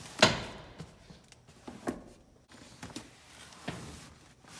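Jeep Wrangler JL rear seat being lifted and folded forward: a sharp clunk about a quarter second in, then two softer knocks, with the rustle of the nylon cargo liner being handled in between.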